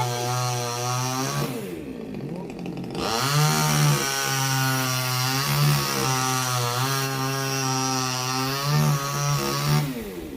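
Two-stroke chainsaw running at full throttle while cutting into a coconut palm trunk. It drops to idle for about a second and a half, revs back up and cuts steadily, then falls off to idle again near the end.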